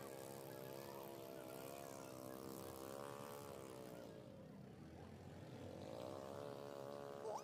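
Small inboard engine of a wooden ketinting river boat running, its pitch dropping and fading about four seconds in as it throttles back, then rising again as it picks up.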